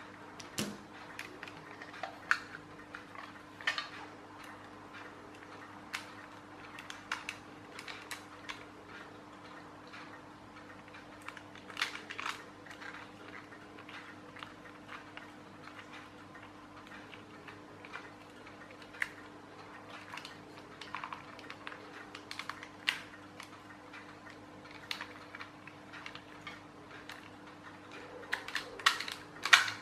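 Scattered light clicks and taps of hard plastic toy parts and a small screwdriver being handled while a clockwork toy tractor's clear plastic gearbox is taken apart, with a cluster of louder clicks near the end. A faint steady hum runs underneath.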